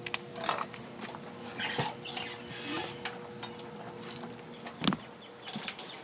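Handling noise and footsteps as a hand-held camera is carried along, with small scattered clicks and rustles over a steady hum. A sharp knock about five seconds in is the loudest sound, and the hum stops there.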